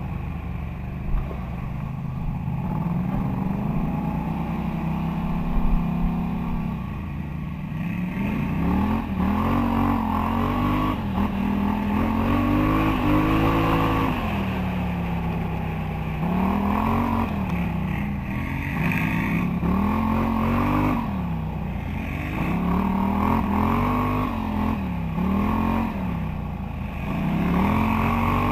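Polaris ATV engine running under the rider on a trail: steady for the first several seconds, then rising and falling in pitch again and again as the throttle is opened and eased off. A couple of short knocks come in the first six seconds.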